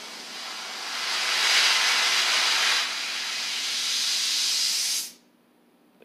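Acetylene brazing torch flame hissing loudly as the gas is turned up, swelling about a second in. About five seconds in the hiss drops away abruptly as the flame is cut down to a small blue flame.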